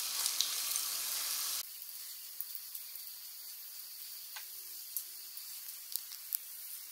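Khoya gulab jamun balls deep-frying in ghee on a very low flame: a steady sizzle with scattered small pops. About a second and a half in, the sizzle drops quieter and thinner.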